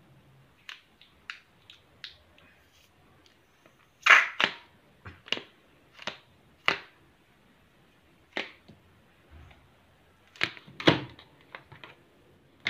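Handling noise from a long latex modelling balloon: a scattered series of short, sharp rubbery squeaks and taps as it is gripped, flexed and stretched, the loudest about four seconds in and again near eleven seconds.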